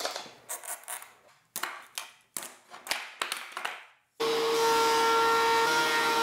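Bar clamps being handled and tightened on a glued-up wooden block, a run of irregular clicks and scrapes. About four seconds in it cuts to a benchtop thickness planer running loud and steady with a whine, a board being fed into it.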